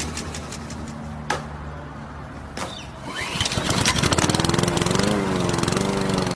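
Small petrol generator engine running, its rapid firing picking up and growing louder from about three seconds in, with the pitch wavering, then cutting off abruptly.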